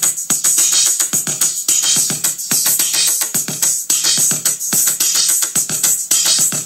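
Electronic music with a fast drum-machine beat, played from cassette through the speakers of a Panasonic RC-CW200L double-cassette boombox.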